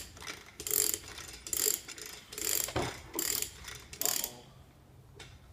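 Come-along hand winch being cranked: six ratcheting strokes, a little under one a second, stopping about four seconds in. The winch is drawing its cable tight to pull out a sawn-through deck support post.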